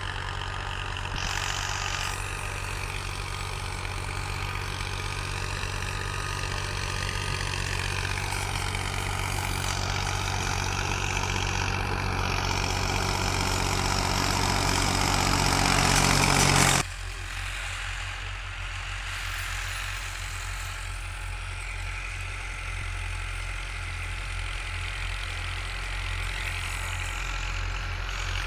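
Farm tractor's diesel engine running while pulling a disc harrow through a ploughed field. It grows steadily louder as the tractor comes close, then drops abruptly about seventeen seconds in to a steadier, quieter engine sound.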